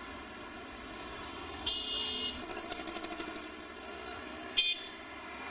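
Street traffic noise with two vehicle horn honks: one about half a second long, about two seconds in, and a shorter, sharper one near the end. A quick run of ticks follows the first honk.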